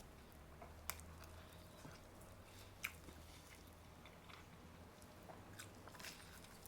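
A person biting into and chewing a roast beef sandwich, faintly, with a few small clicks about one and three seconds in and a cluster near the end.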